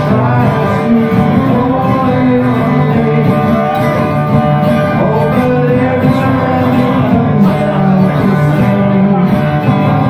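A man singing live while accompanying himself on an acoustic guitar, a steady song with no break.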